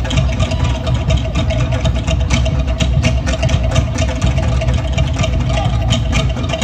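Fast Polynesian drumming, a rapid run of evenly spaced beats, loud and steady, accompanying a dance.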